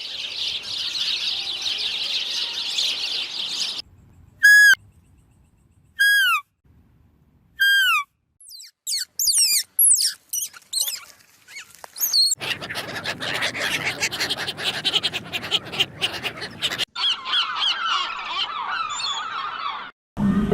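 A run of different bird-like calls: dense high chattering, then three separate falling whistled calls, a burst of rapid chirps, and more chattering calls over a rougher, noisier background near the end.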